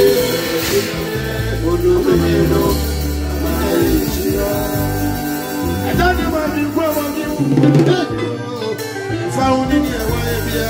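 Live gospel band music: a man singing into a microphone over conga-style hand drums and a line of low bass notes.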